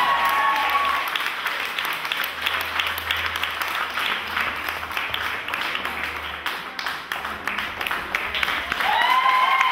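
Crowd applause, steady and dense, with loud whooping cheers at the start and again about nine seconds in.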